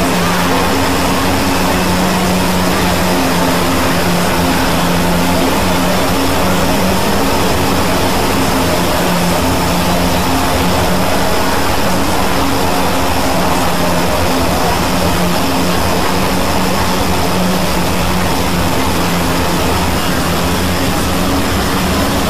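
Loud, dense, steady din of many video soundtracks layered over one another, blurred into one wash of noise with a few steady low hums running through it.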